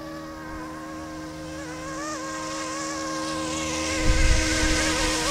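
Small electric RC helicopter's rotor and motor whine, a steady buzzing tone that grows louder as it spools up and lifts off, with brief rises in pitch as the throttle changes. Low rumbling noise joins from about four seconds in.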